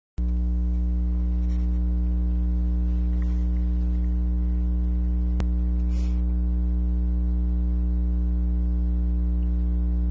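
Loud, steady electrical mains hum with a stack of overtones, and one sharp click about five and a half seconds in.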